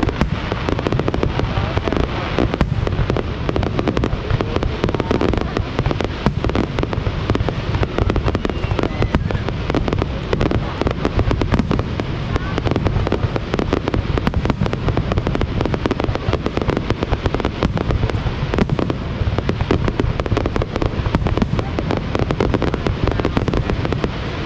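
Fireworks display: a continuous barrage of bangs and crackles, many reports a second without a break.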